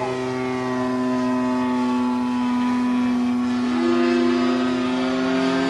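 Evolution 35cc two-stroke gas engine and propeller of a Hangar 9 P-47 model airplane flying overhead, running at a steady throttle with a slowly wavering pitch. A second, higher engine tone joins about four seconds in.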